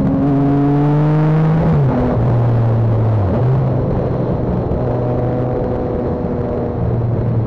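Motorcycle engine running while riding. The revs climb slightly, drop about two seconds in, then hold steady, over rushing wind and road noise.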